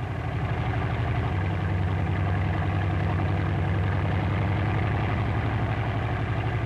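An Avenger's radial aircraft engine running steadily at idle: a low, even drone that grows slightly stronger about a second and a half in.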